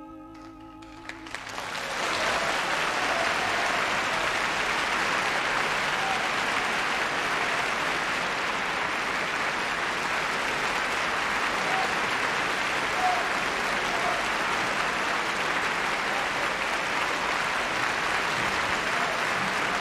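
An orchestra's final held chord of an opera aria dies away about a second in. Audience applause breaks out as it ends, swells over the next second and then holds steady.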